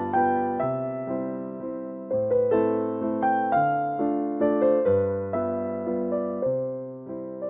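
Background piano music: a slow melody of struck notes that each fade away, over lower notes that change about once a second.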